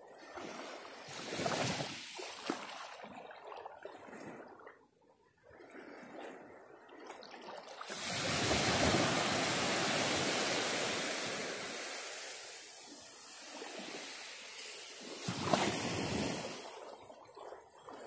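Small waves on a calm sea washing onto a sandy beach, rising and falling in surges: a short one about a second and a half in, a long, louder wash from about eight seconds in, and another short surge near the end.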